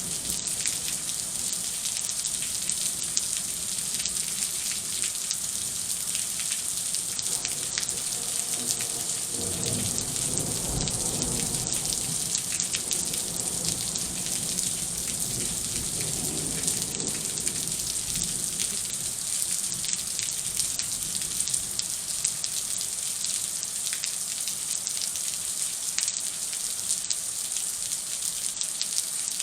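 Heavy rain falling steadily during a thunderstorm, a constant hiss dotted with drop impacts. A low rumble rises and fades in the middle.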